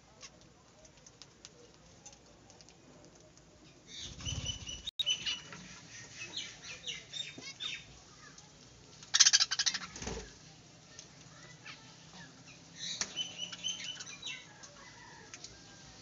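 Budgerigars chirping and chattering in short bursts, with a loud flurry of wing flaps about nine seconds in.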